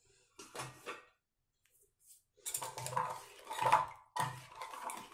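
Steel spoon stirring a besan-and-buttermilk batter in a small steel bowl, scraping and clinking against the sides in quick repeated strokes. The strokes start about two and a half seconds in, after a brief pause.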